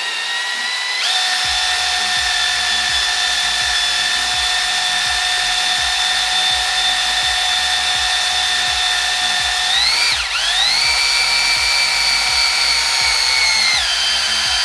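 Cordless drill on an extension spinning the oil pump of a rebuilt Volvo B230 redblock four-cylinder, priming oil pressure before its first start. A steady motor whine that steps up in pitch about a second in, dips and then climbs higher about ten seconds in, and drops back near the end.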